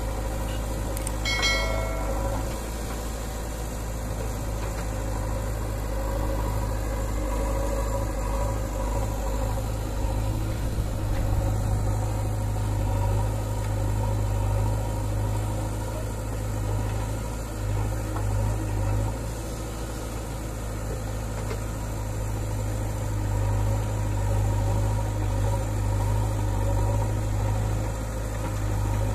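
JCB 3DX backhoe loader's diesel engine running steadily with slight swells as the backhoe digs soil.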